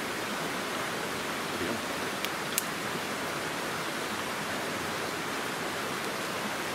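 Steady rushing of a fast-flowing river. Two sharp clicks sound about two and a half seconds in.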